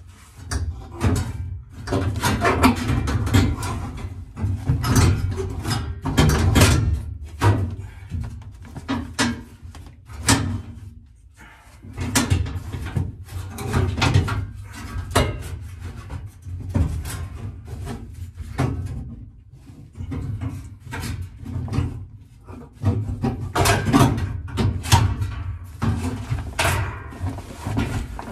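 Irregular knocks, clunks and scrapes as a man works lying in the back of a car, handling the rear interior panels under the roll bar, with short pauses between bouts.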